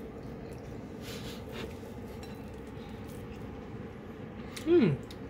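A knife slicing thin pieces from a salt-cured trout fillet on a wooden cutting board, faint over a steady low room hum. Near the end comes a brief, louder pitched sound that falls steeply in pitch.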